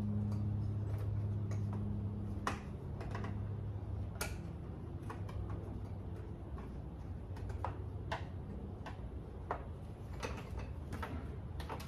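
Scattered sharp clicks and taps of a plastic headlight bezel on a Mercedes G63 being handled and fitted against the headlight, over a low steady hum that fades about two and a half seconds in.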